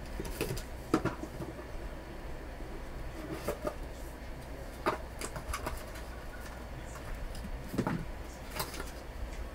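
A small cardboard trading-card box being opened by hand: a utility knife slitting the seal, then the lid and the inner card tray lifted off. Scattered light scrapes and taps, with sharper knocks about a second in, near five seconds and near eight.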